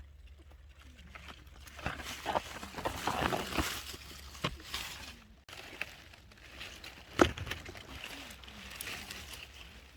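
Close rustling and crackling, with a sharp snap about seven seconds in.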